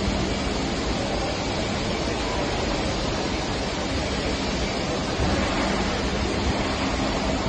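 Steady, even background noise of power-plant machinery, with a faint low hum that drops out just after the start and comes back about five seconds in.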